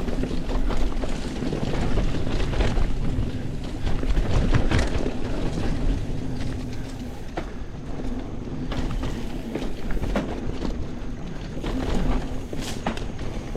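Mountain bike rolling over a dirt trail: a steady rumble of tyres on the ground, with frequent clicks and rattles from the bike over bumps. A faint steady hum runs through the first half.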